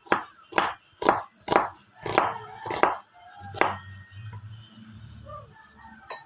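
Knife chopping a red onion on a thick wooden chopping board: about seven sharp knocks, roughly two a second, stopping about three and a half seconds in.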